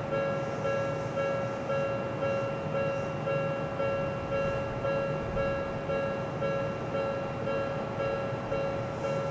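Japanese railway level-crossing alarm (fumikiri) ringing its two-tone electronic bell in a steady, even, repeating rhythm, over a steady low rumble.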